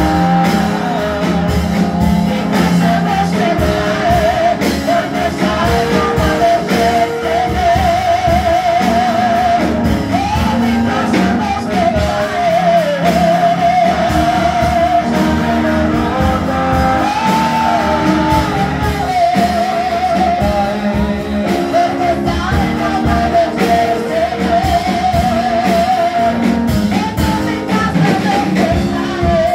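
A woman singing a worship song into a microphone with a wavering vibrato, over amplified instrumental accompaniment.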